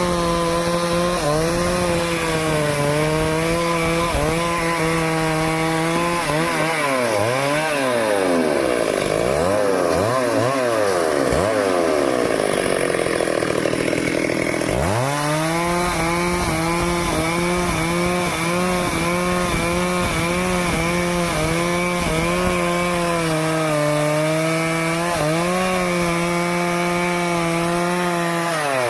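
Stihl two-stroke chainsaw running at high speed, cutting through teak wood. About a quarter of the way in, the engine speed swings rapidly up and down for several seconds, drops low about halfway, then climbs back and holds steady.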